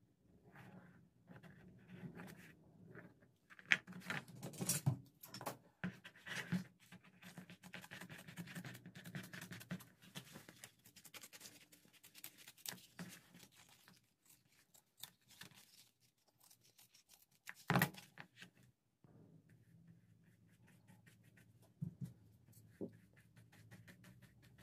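Faint close-up sounds of hand leatherwork: a pen scratching as it traces round a template on leather, then scissors cutting through the leather lining, with scattered small taps and clicks. A sharper knock comes about two-thirds of the way through.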